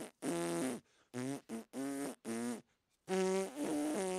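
A cartoon lemur 'whistling' a tune with buzzing lips, like blowing raspberries: about seven short notes at changing pitch, with a brief pause about two and a half seconds in.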